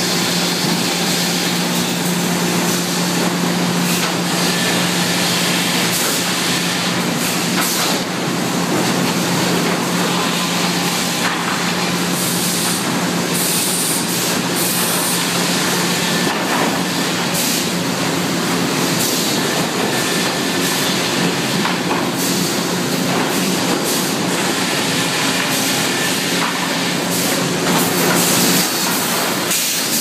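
Sawmill machinery running: a loud, steady din of motors and conveyors with a constant low hum, broken by frequent short clanks and knocks of steel and boards.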